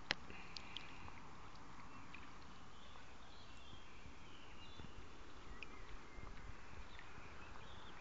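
Faint outdoor background noise with a few scattered light clicks.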